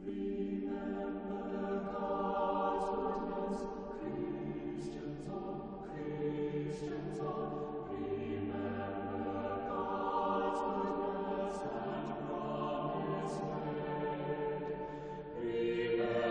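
A choir singing a slow piece in held chords that change every couple of seconds, with sharp sung 's' sounds; it swells louder near the end.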